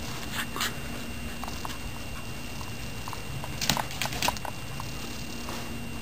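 Scattered short, sharp clicks and taps, with a quick cluster about two-thirds of the way through, over a faint steady high whine.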